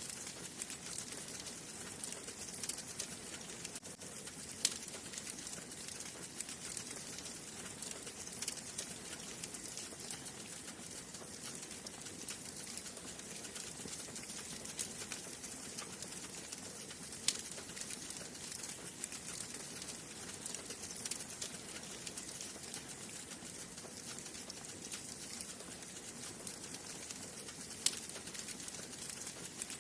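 Wood fire burning in a fireplace: a steady soft hiss with continual small crackles and three sharper pops spread through.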